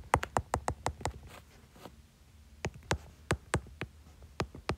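Stylus tip clicking and tapping on a tablet's glass screen during handwriting: a quick run of sharp clicks in the first second, a lull, then more spaced clicks from about two and a half seconds in.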